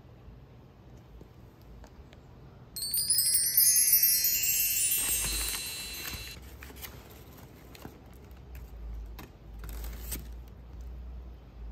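A bright run of bar chimes, many high bell-like tones rippling in quick succession, starting about three seconds in and lasting about three seconds. After it, faint crinkles and rustles of paper bouquet wrapping being handled.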